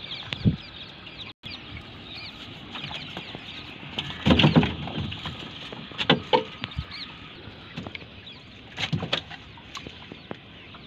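A live fish flapping and knocking against the net and the boat as it is freed from a gill net, making a few sudden thumps, the loudest about four seconds in. Small birds chirp in the background.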